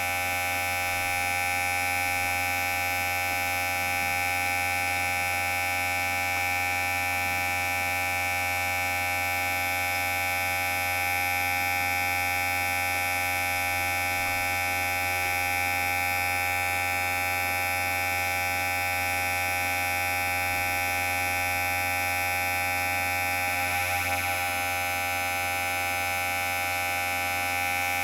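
Electric hair clipper running with a steady, unbroken buzz.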